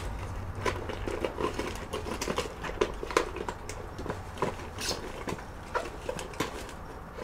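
Irregular small clicks and knocks of hard objects being picked up and rummaged through by hand, over a low steady hum.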